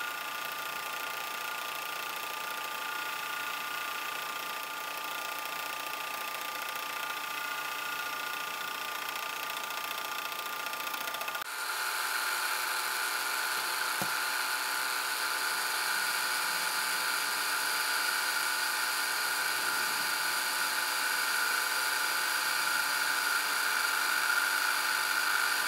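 South Bend 9A metal lathe running under cut, a steady whine with the tool bit cutting metal. For the first part it is an interrupted cut on square bar stock, the tool bit leaving and striking the work on each turn. About eleven seconds in the sound changes abruptly and becomes a little louder as the tool faces a round workpiece.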